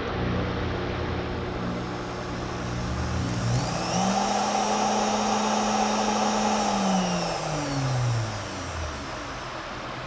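Small foot-pedal-controlled electric motor, rated at 15,000 RPM maximum, running at moderate speed. About three seconds in it is throttled up to a higher, steady whine, holds there for about three seconds, then spins down and stops near the end.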